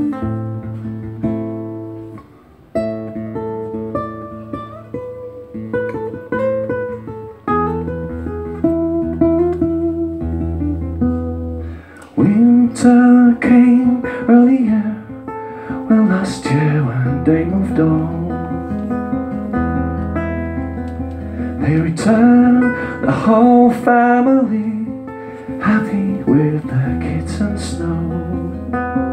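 Acoustic guitar played solo: picked notes at first, then harder strummed chords from about halfway through, with a wordless voice line gliding over them.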